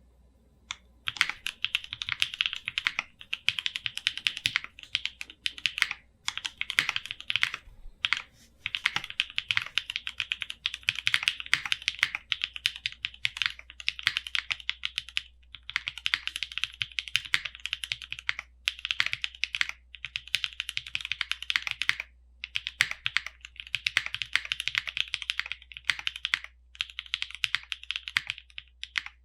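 Typing on a custom Monokei KFE CE tenkeyless mechanical keyboard with Ubecakes (Lavender/Cream) switches and GMK First Love keycaps, resting on a deskmat: fast runs of keystrokes that start about a second in, with a few brief pauses.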